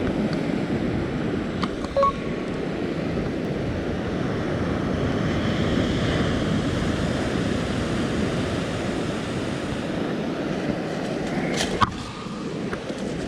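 Ocean surf breaking and washing up the beach as a steady rush that swells about halfway through. A few short clicks stand out, the sharpest just before the end.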